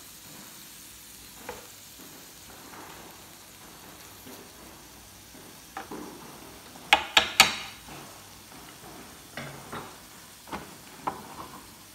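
Mussels and shrimp sizzling faintly on an electric grill's ridged nonstick plate, with scattered sharp clicks and knocks; the loudest is a quick run of three about seven seconds in.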